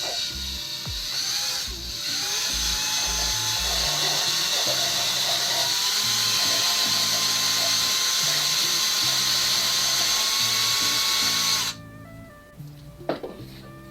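A drill spins a Honda CB450 valve against its seat in coarse lapping paste, grinding the valve face and seat together. It runs in short bursts at first, then steadily from about two seconds in, and stops abruptly near the end. Background music plays underneath.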